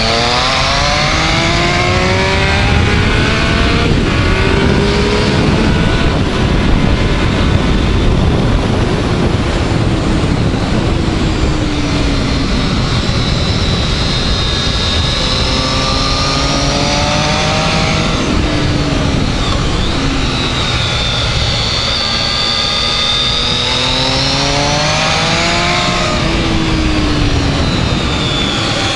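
Triumph Speed Triple's three-cylinder engine under hard riding on track, rising in pitch as it accelerates several times and dropping back between for the corners, under heavy wind rush on the bike-mounted microphone.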